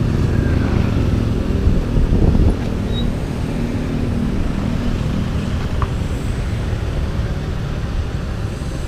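Steady low rumble of road traffic, a little louder about two seconds in as a vehicle passes.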